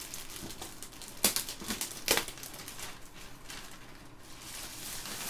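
Clear plastic bag crinkling and rustling as a boxed toy is worked out of it, with two sharper, louder crackles about one and two seconds in.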